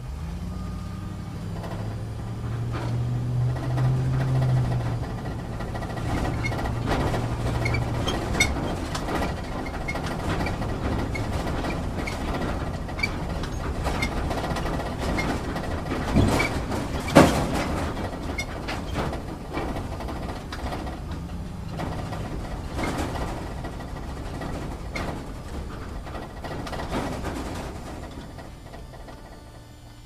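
Inside a vehicle driving off-road: the engine runs low and steady while the cabin rattles and clatters over rough ground. There is one loud knock about halfway through.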